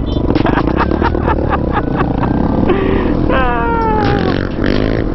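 Single-cylinder supermoto motorcycle engine running while riding, with a short falling tone about three and a half seconds in.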